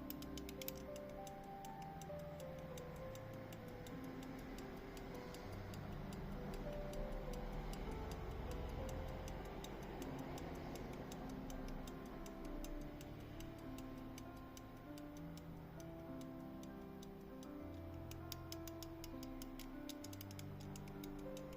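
Rapid, even ticking of an antique verge fusee pocket watch running, with slow held notes of background music. The ticks are plainest at the start and again near the end, and fainter in the middle.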